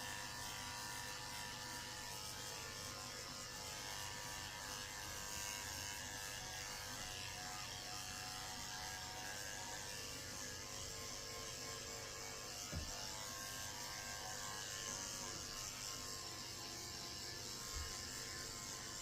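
Electric dog grooming clippers with a number 10 blade running steadily, faint, shaving a matted coat down close to the skin.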